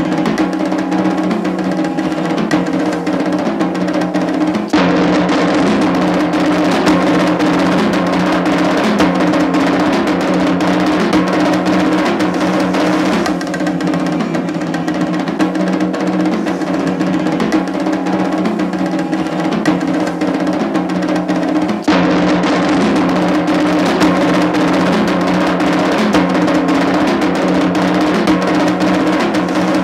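Soundtrack music for a contemporary dance piece: fast, dense drumming over a steady held low chord. The texture changes suddenly about five seconds in and again about twenty-two seconds in.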